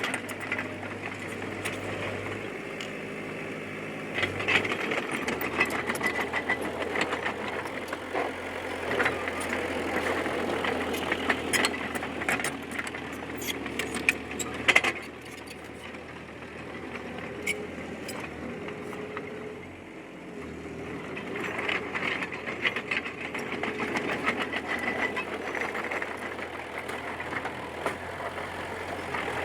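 D20P bulldozer's diesel engine running under changing load, swelling and easing, with scattered metallic clanks; the loudest clank comes about halfway through.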